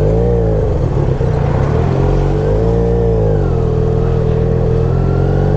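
Motorcycle engine running under way, its revs rising and falling twice, then holding steady for the last couple of seconds.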